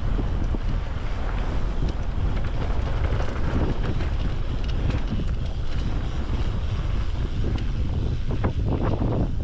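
Wind buffeting the microphone of a downhill mountain bike ride, a steady low rumble, with scattered ticks and rattles from the bike and its tyres on the trail surface.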